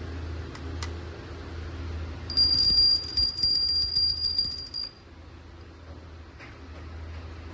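A bell ringing rapidly in a fast metallic trill for about two and a half seconds, starting about two seconds in and cutting off suddenly.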